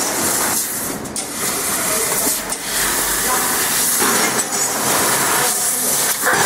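Fiber laser cutting machine cutting 1 mm stainless steel sheet: a loud, steady hiss of gas and cutting from the head, its texture shifting every second or so as the cuts change.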